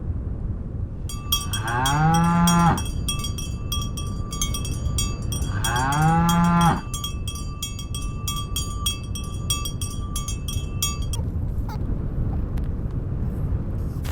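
A cow mooing twice, each moo about a second long and rising in pitch. A steady high-pitched ringing with rapid ticking runs behind it and stops about eleven seconds in.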